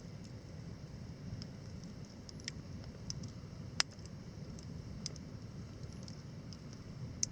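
Campfire wood crackling, with scattered small pops and one sharper snap about four seconds in, over a low steady rumble.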